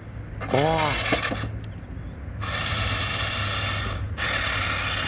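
Electric RC truck driving hard across dirt, its tyres spinning and scraping in two long hissy stretches, with a short wavering whine about half a second in.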